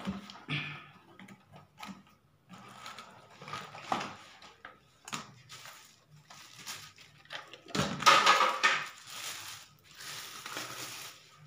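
A soundbar's box and packaging being handled and opened: scattered clicks and knocks, with louder rustling about eight seconds in and again near the end.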